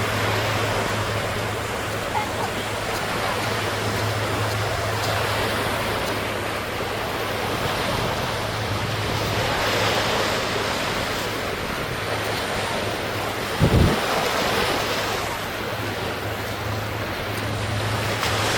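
Small sea waves washing onto a beach, swelling and easing, over a steady low hum. A brief low thump about fourteen seconds in.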